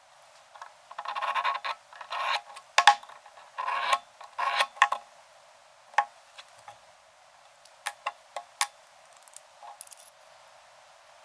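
Steel calipers and a steel knife blank handled on a workbench: a few seconds of metal sliding and scraping with clinks, then several sharp separate clicks as the pieces are set down and picked up.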